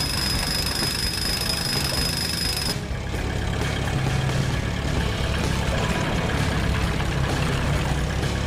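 Heavy construction-vehicle engine running steadily with a low rumble, along with a steady high whine that cuts off about three seconds in.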